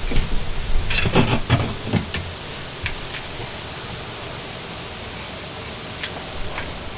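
A cluster of knocks and clicks from handling a tool against the wooden shower-pan support frame, then a few isolated clicks, over a steady hiss.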